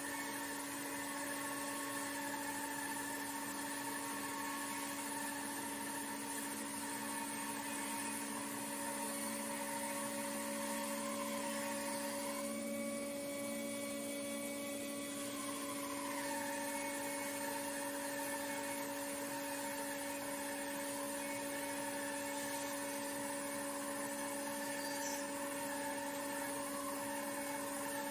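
Laguna 14BX bandsaw running with its carbide-tipped blade cutting lengthwise through a sycamore log: a steady motor hum and whine from the blade in the wood. The higher whine fades for a few seconds near the middle of the cut, then comes back.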